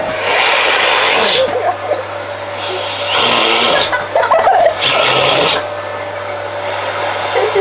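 Household vacuum cleaner running with a steady hum, its rush of air swelling and falling back in three surges.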